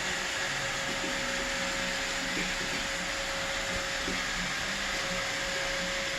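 Roomba robot vacuum running: a steady whirring hiss with a constant hum.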